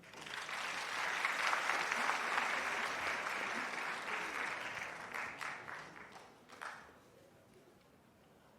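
Concert audience applauding: it starts suddenly, holds steady, then thins to a few scattered claps and dies away about seven seconds in.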